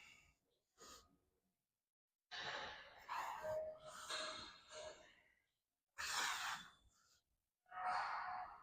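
A man breathing hard with effort while lifting: a long, strained exhale with a brief voiced sigh about two seconds in, then two shorter, sharp breaths out near the end.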